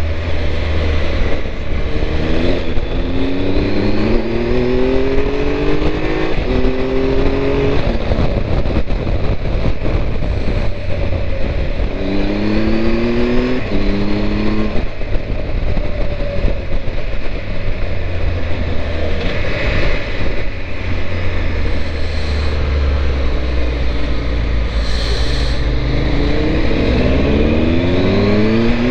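Triumph Tiger 1200's three-cylinder engine pulling up through the gears, its pitch rising and dropping back at each shift, in three bursts of acceleration. Heavy wind rumble on the microphone from riding with the screen lowered runs under it throughout.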